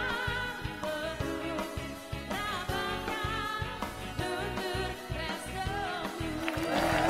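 A live pop band plays, with a woman singing into a microphone over electric guitar and drum kit. Applause starts near the end.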